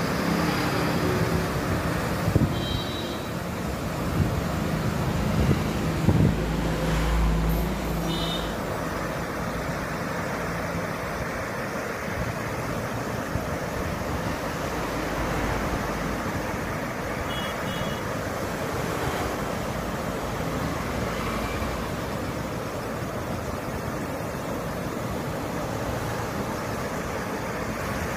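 Steady rush of river water pouring over a weir, with wind on the microphone. A low engine hum sits under it for the first several seconds, with a deeper rumble around six to eight seconds in.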